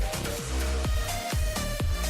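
Electronic dance music, instrumental, with a steady kick-drum beat about twice a second under sustained synth tones.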